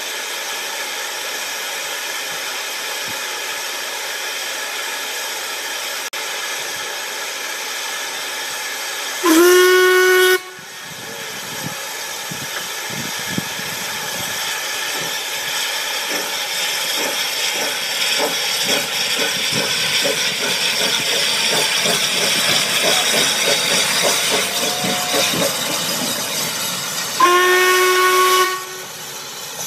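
Narrow-gauge steam locomotive of the 2 ft 6 in Welshpool and Llanfair Light Railway: a steady hiss of steam, then a short loud whistle about nine seconds in. Exhaust chuffs follow and grow louder, and a second whistle sounds near the end.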